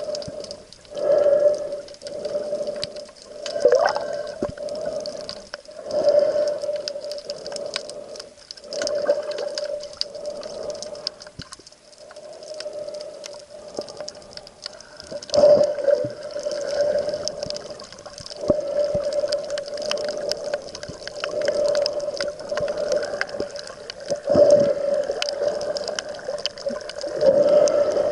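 Muffled sea-water noise around a camera in the water, swelling and easing every two to three seconds, with a steady hum underneath and scattered small clicks.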